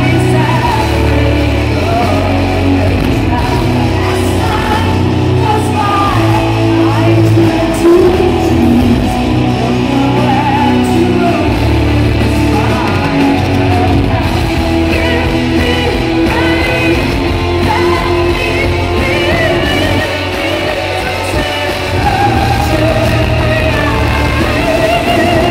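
A symphonic metal band playing live, a woman singing lead over distorted electric guitars, keyboards and drums, heard loud and reverberant from the hall.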